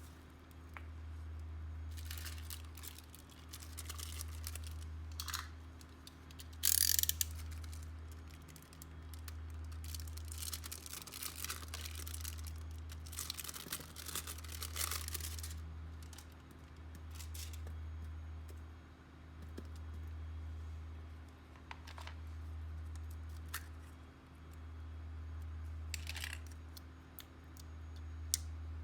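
Slime being squished and worked by hand, with clusters of wet crackling and clicking pops every few seconds. A low hum swells and fades about every two seconds underneath.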